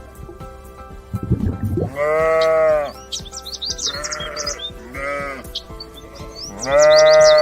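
Sheep bleating four times, the last call the longest and loudest, with small birds chirping between the calls.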